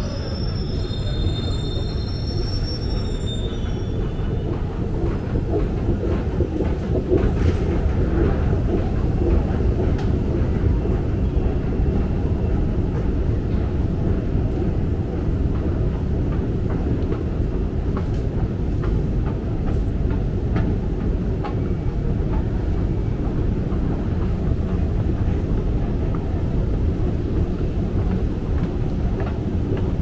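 A Jubilee line tube train at the platform with a high electric whine for the first few seconds, over a steady low rumble that continues without a break.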